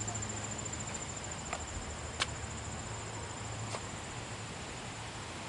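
Insects trilling outdoors, a steady high, finely pulsing chirr like crickets, with a few faint clicks about one and a half, two and nearly four seconds in.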